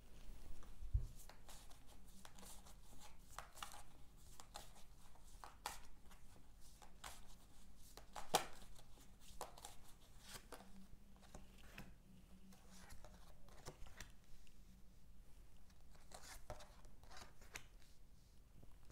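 Tarot cards being shuffled and handled: soft, scattered rustles and small clicks, with a sharper snap about eight seconds in.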